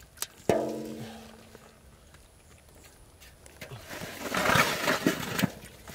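Metal basin struck once with a sharp clang that rings on for about a second, as a fish lands in it. Later, a second or so of rapid wet slapping and scraping from fish thrashing in the basin.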